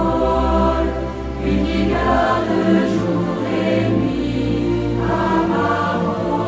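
Christian worship song with choir singing over instrumental accompaniment; the deep bass note drops away a little over two seconds in.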